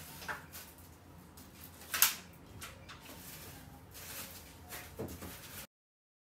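Holland lop rabbit moving about and playing: a few light clicks and scuffs over a faint hiss, the sharpest click about two seconds in. The sound cuts off to total silence near the end.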